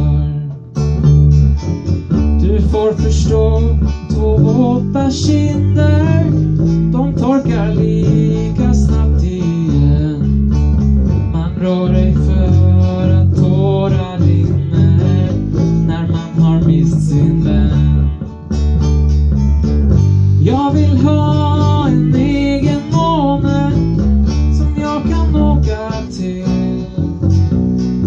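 A small band playing a song live: acoustic guitar strummed over an electric guitar or bass line, with a voice singing into a microphone in places.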